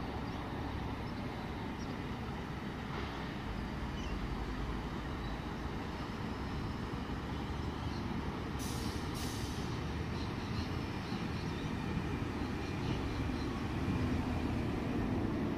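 Sydney suburban electric train at a station platform: a steady rumble that grows slightly louder toward the end, with two short air hisses about nine seconds in.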